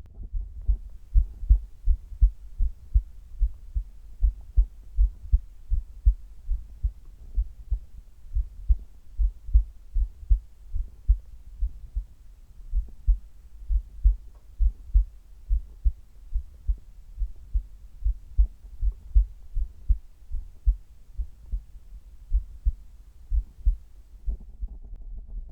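A human heartbeat, close-miked, during sit-ups: a quick, regular run of low thumps, about two to three a second, the pace of a heart raised by exercise.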